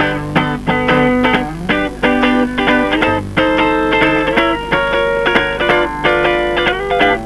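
Electric guitar playing an instrumental melody of quick plucked notes over a low bass accompaniment, in an upbeat Swedish dance-band style.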